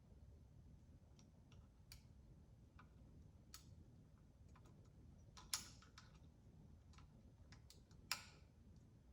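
Near silence with faint scattered clicks and light taps of small parts being handled during hand assembly, two a little louder about five and a half and eight seconds in.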